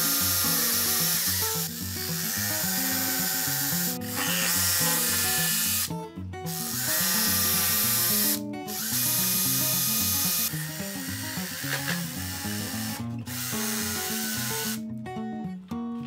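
Jigsaw cutting a notch in a piece of MDF trim, in a series of runs of about two seconds each with brief stops between them. Background music plays underneath.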